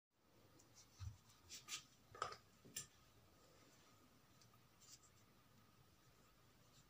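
Faint handling noises: a few light knocks and rustles as small objects are picked up and moved by hand, bunched in the first three seconds, with one more near five seconds. Otherwise near silence.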